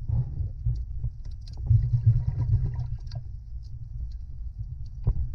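Underwater sound through a submerged camera: a low rumble of moving water with scattered knocks and clicks. It grows louder from about two to three seconds in, and a sharp knock comes near the end.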